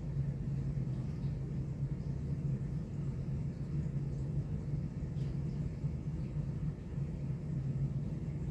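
Steady low hum of room background noise, unchanging throughout, with only a few faint light handling sounds.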